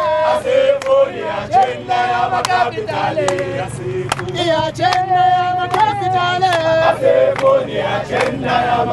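A crowd of marchers singing a protest song together, their held notes rising and falling in chorus, over a steady beat of sharp hits.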